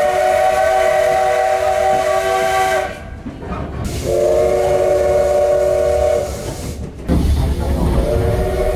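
Steam whistle of the C12 66 steam locomotive blowing three long blasts, a steady chord of several tones sounded wide open. The first blast ends about three seconds in, the second lasts about two seconds, and the third starts near the end over the low rumble of the train running.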